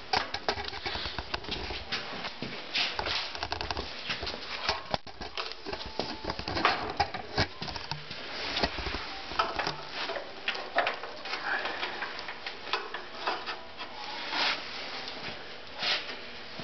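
Irregular light clicks, taps and rustling from handling, with no engine running.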